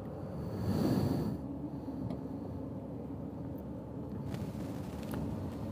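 Motorcycle engine idling with a steady low hum, with a brief rush of noise about a second in.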